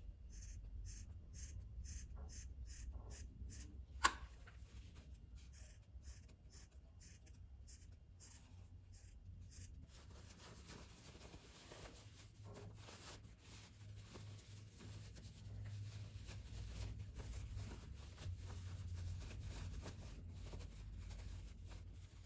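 Fabric scissors snipping in quick succession, about two cuts a second with one louder snip about four seconds in, clipping notches into the curved seam allowance of a sewn fabric piece. After about ten seconds the snipping stops, and the fabric rustles and rubs as it is turned right side out by hand.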